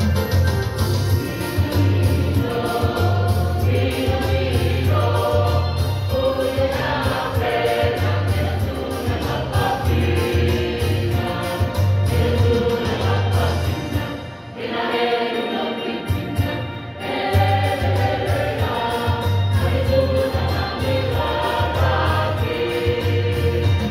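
A choir singing a song together in parts over a pulsing low bass accompaniment. The singing and the bass stop for a moment a little past halfway, then start again.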